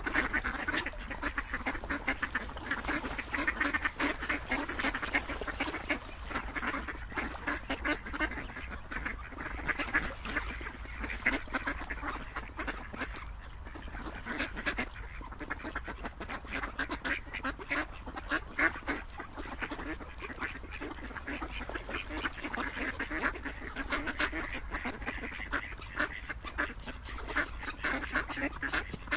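Ducks quacking continuously, many calls overlapping in a steady, busy chorus.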